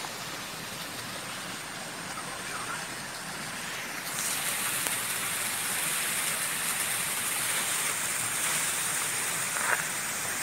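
Steady rushing of a waterfall's falling water, growing louder about four seconds in, with one short click near the end.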